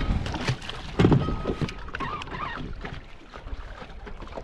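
Bow-mounted Minn Kota electric trolling motor being deployed into the water: a loud clunk about a second in, followed by a short steady tone, over wind and water lapping on the hull.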